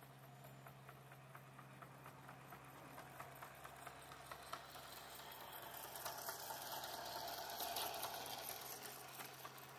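Battery-powered Thomas the Tank Engine garden-scale model train pulling its two coaches, its motor running and its wheels clicking regularly over the rail joints. It grows louder as it passes close by about eight seconds in, then fades.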